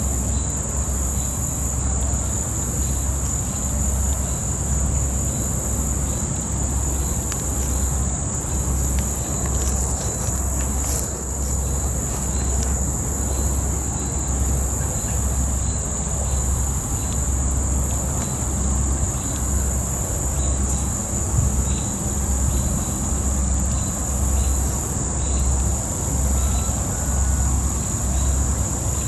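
A chorus of insects buzzing in the trees: a steady high-pitched drone with a higher, evenly pulsing trill above it. Underneath runs a low, pulsing rumble.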